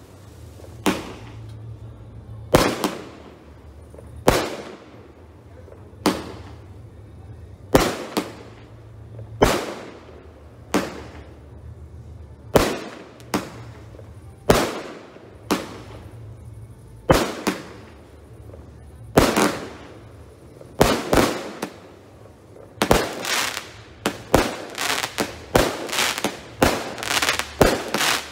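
F2 consumer-category fireworks going off in a display, one sharp bang after another, each trailing off. The shots come about every one and a half to two seconds, then quicken to several a second in the last few seconds.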